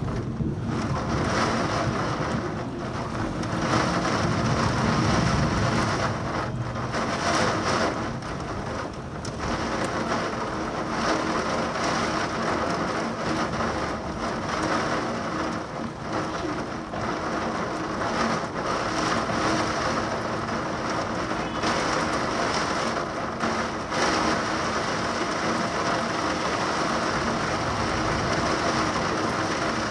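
Heavy downpour from a supercell thunderstorm, a steady hiss of rain, with thunder rumbling low a few seconds in.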